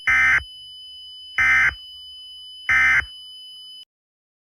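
Emergency Alert System end-of-message signal: three short bursts of SAME digital data tones, about a second apart, marking the end of the broadcast alert. The audio cuts off suddenly soon after the third burst.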